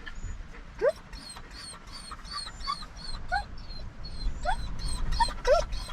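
A dog whining in a string of short, rising whimpers, one after another, over a steady low rumble.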